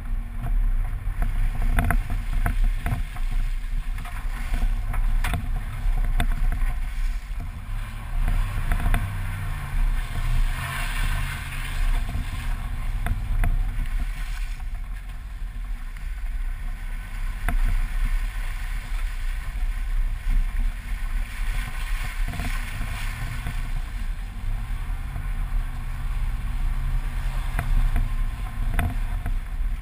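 A vehicle's engine rumbling as it drives across a wet, muddy lot, heard from a camera mounted on the outside of the body, with wind buffeting the microphone and tyre and splash noise. The engine revs up and falls back twice, about nine seconds in and again about twenty-five seconds in.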